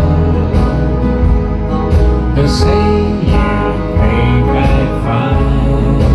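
Electronic keyboard played by hand, a slow ballad melody over a steady bass line and a regular beat.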